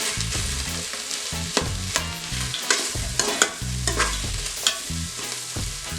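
Sliced onion and thyme sizzling in hot oil in an Instant Pot's inner pot on the sauté setting, with a utensil clicking and scraping against the pot as they are stirred.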